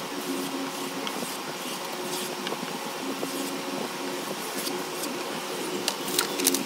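Kitchen knife blade being drawn along a leather strop loaded with green polishing compound, giving faint swishes and light ticks at irregular intervals, a few more near the end. Under it runs a steady hum with a few low tones.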